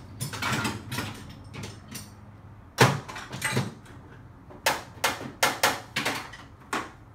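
Metal hand tools clanking and rattling as they are rummaged through in a hunt for a lost 14 mm tool: a clatter at the start, one loud knock about three seconds in, then a quick run of sharp knocks near the end.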